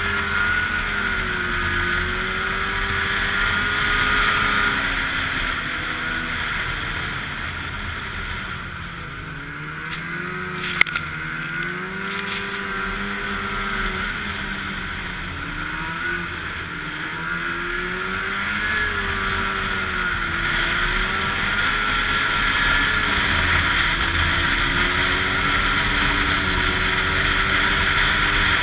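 Snowmobile engine running while riding a trail, its pitch rising and falling again and again as the throttle is worked, over a steady rush of noise. One sharp tick about eleven seconds in.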